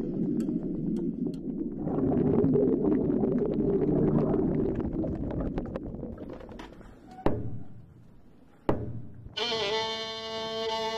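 Muffled rushing and crackling of water on an underwater camera, which fades out. Two sharp knocks follow, then a violin comes in near the end, bowing a long held note.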